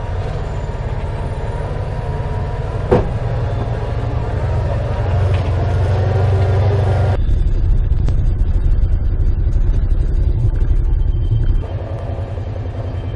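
Side-by-side UTV running in low gear down a rocky trail, heard from inside the cab: a steady engine drone over a heavy low rumble. A single sharp knock comes about three seconds in.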